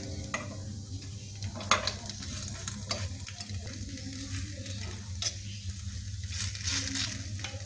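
Wingko babat cooking in a multi-cup metal mold pan with a faint sizzle. Scattered sharp clicks and scrapes come from a metal utensil striking the pan as the cakes are turned over, over a low steady hum.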